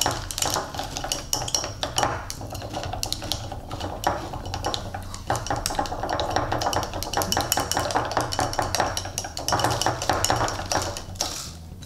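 A chopstick stirring fast in a cup, clicking and scraping against its sides as a thick powdered candy mix and water are worked to break up the clumps.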